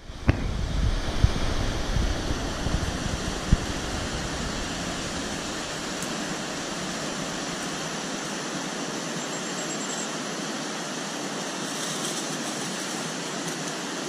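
Steady rush of a mountain stream, with a few sharp knocks and low thumps in the first few seconds.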